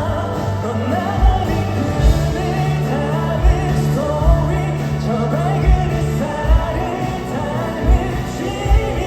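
A pop song played by a band, with a steady kick-drum beat about every three-quarters of a second and a melodic line bending over the chords.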